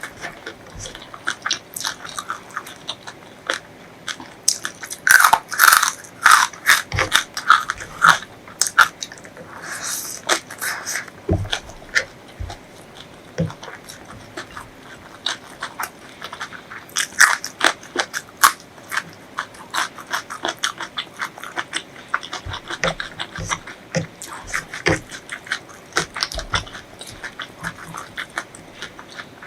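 Close-miked eating: a person biting, crunching and chewing food, heard as a dense run of irregular clicks and crackles. The crunching is loudest and thickest about five to eight seconds in.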